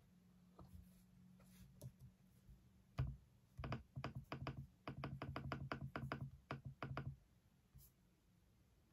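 Keys of an Apple Magic Keyboard for iPad Pro being pressed in a quick run of clicks, several a second, for about four seconds starting about three seconds in.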